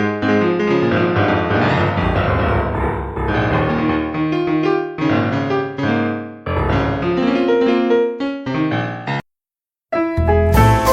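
Piano music playing a sequence of notes, cutting out completely for about a second near the end before the music resumes with a fuller, brighter sound.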